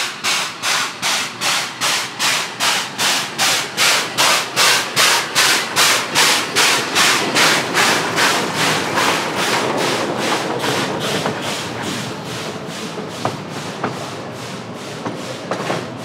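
Geared steam locomotive working, its exhaust chuffing about three beats a second. The chuffs grow louder, then fade after about ten seconds into a steady rumble of the train rolling, with sharp clicks of wheels on the rails.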